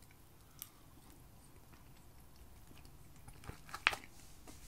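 A man quietly chewing a mouthful of cheese-and-pepperoni oven fries. A few short clicks come about half a second in and again near the end, the loudest just before the end, as his fork picks at the food tray.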